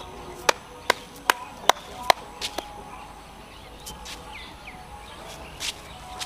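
Hands working something in a cupped palm: a quick run of sharp taps, about two or three a second, then a few fainter taps later.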